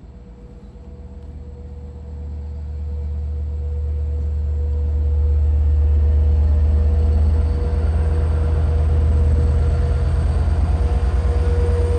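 EMD DE30AC diesel-electric locomotive pulling a passenger train into the station, its engine rumble growing louder over the first five seconds as it draws near, then holding steady, with a steady whine.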